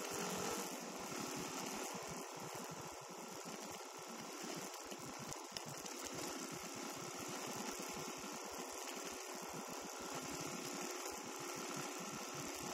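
Dirt bike engine running, a steady muffled mechanical buzz.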